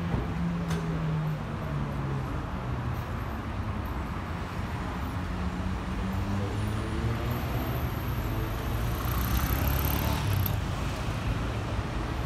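City street traffic: car engines running and vehicles passing, with a steady low rumble and one vehicle growing louder about nine to ten seconds in.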